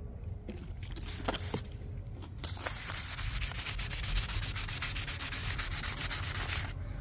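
Hand wet-sanding of a carbon-fibre hydrofoil stabilizer with 1500-grit wet/dry silicon carbide paper. A few light scrapes come first, then from about two and a half seconds in a steady run of quick back-and-forth rubbing strokes, which stops shortly before the end.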